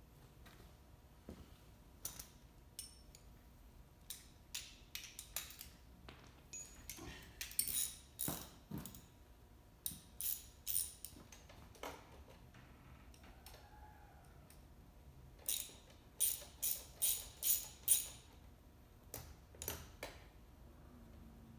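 Metal clicks and short rattles of hand tools and parts being handled while a small electric ATV is assembled. The clicks come irregularly at first, then as a quick run of about five rattles, roughly two a second, near the end.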